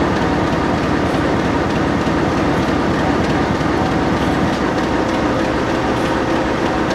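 Diesel-electric locomotive's engine running steadily at close range, a loud even drone with a few held tones.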